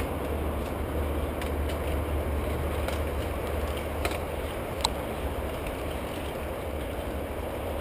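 Riding noise picked up by a camera on a mountain bike moving along a dirt forest trail: a steady low rumble and hiss of tyres and air, with scattered light rattles and clicks from the bike and one sharper click about five seconds in.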